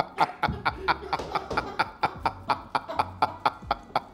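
Two men laughing hard together, a long run of quick repeated bursts of laughter, several a second.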